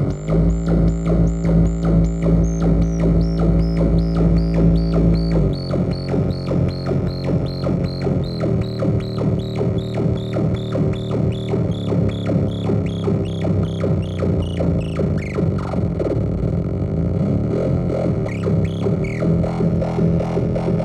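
Homemade three-oscillator noise-box synthesizer playing a buzzy, pulsing drone whose low pitch jumps in steps a few times as its knobs are turned. Over the first half a string of high blips slides gradually downward in pitch.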